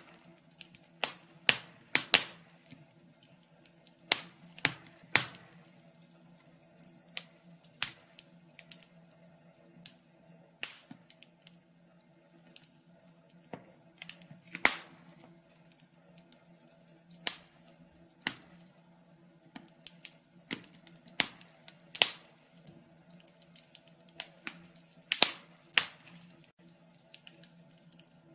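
Wood fire crackling: irregular sharp pops and snaps a second or two apart, some much louder than others, over a faint steady low hum.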